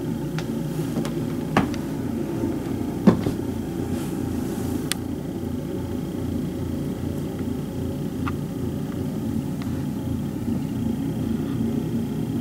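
Ariens Deluxe snow blower's engine running steadily in the driveway, heard from indoors through the bedroom window as a low rumble, with a few sharp clicks, the loudest about three seconds in.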